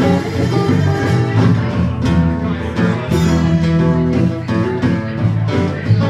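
A live band playing with acoustic guitars strumming over a drum kit and bongos, at a steady beat.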